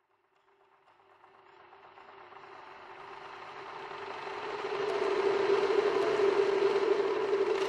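Sound-effect riser: a rushing noise over a steady hum fades in about a second in and swells louder over the next few seconds, then holds.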